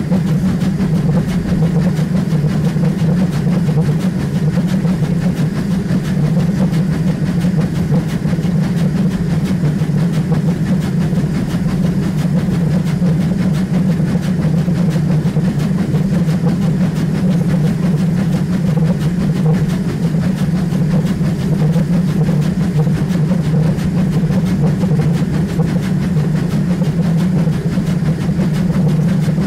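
Steam locomotive running along the line, heard close up from a microphone mounted on the front of the locomotive: a steady rumble from the engine and its wheels on the rails.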